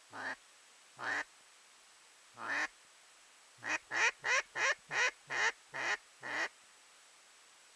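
Duck quacking: three single quacks about a second apart, then a quick run of seven quacks.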